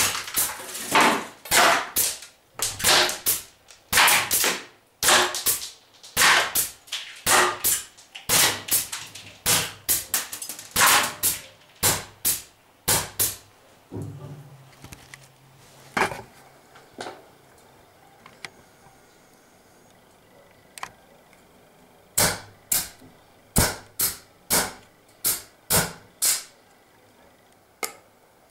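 Homemade pneumatic semi-automatic BB airgun, built around a quick exhaust valve, firing shot after shot: sharp pops about two a second for the first half. After a pause there are a few single shots, then another quick run and one last shot near the end.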